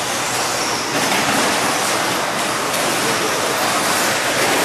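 Electric 2WD short course RC trucks racing on an indoor dirt track, heard as a steady rushing noise of motors and tyres on dirt, with no single distinct event standing out.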